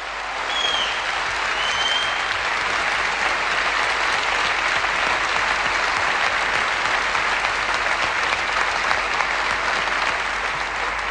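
Large audience applauding, building up over the first second, holding steady and easing slightly near the end. Two short high whistles rise out of it within the first two seconds.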